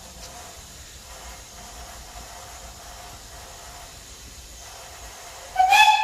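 Romney, Hythe & Dymchurch Railway miniature steam locomotive standing and venting steam with a steady hiss; near the end its whistle starts with a sudden loud blast.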